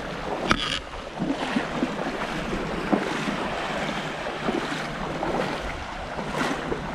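Shallow seawater sloshing and splashing close to the microphone, with wind buffeting it, and a couple of sharper splashes, one about half a second in and one near the end.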